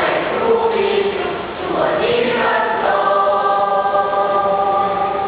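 School choir of students singing in several parts, moving through a phrase and then holding a long sustained chord about three seconds in.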